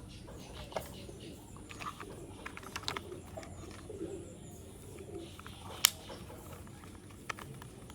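Scattered small clicks and taps of plastic toy excavator parts being handled while a screw is fitted, the sharpest click about six seconds in. A pigeon coos faintly in the background.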